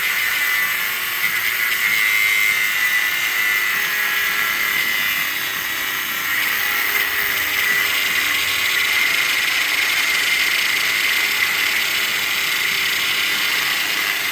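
Rod-cutting machine grinding through steel rod: a steady, high-pitched grinding that does not let up.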